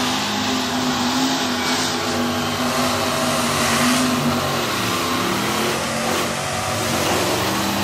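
Lifted mud-bog truck's engine revving hard under load, its pitch dipping and rising, as the truck churns through the mud pit with its tires flinging mud.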